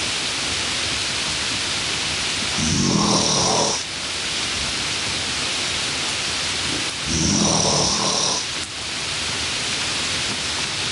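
Snoring, one snore about every four and a half seconds, each lasting about a second, over a loud steady hiss.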